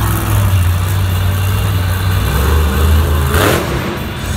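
Grave Digger monster truck's big V8 engine running loud and low under throttle as the truck rears up onto its back wheels in a wheelie. A brief sharp burst of noise comes about three and a half seconds in.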